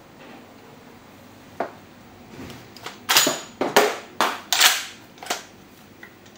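Marushin 6mm Kar98K shell-ejecting gas airsoft rifle being handled and its bolt worked: a lone sharp click, then a quick run of about six loud, sharp metallic clacks over about two seconds.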